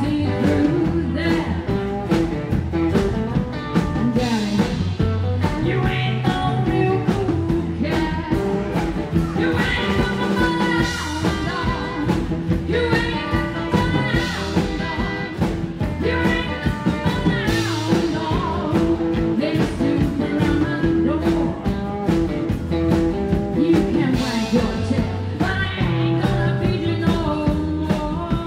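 Live rockabilly band playing: a woman's voice singing lead over electric guitar, acoustic guitar, upright double bass and drums, with a steady beat.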